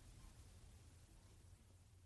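Near silence, with a faint low hum and hiss slowly fading away.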